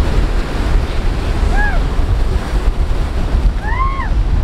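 Wind on the microphone over breaking surf. Two short rising-then-falling calls sound through it, about a second and a half in and again, louder, near the end.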